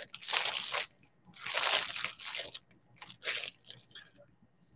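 Clear plastic goodie bag crinkling as it is handled, in three main bursts that die away near the end.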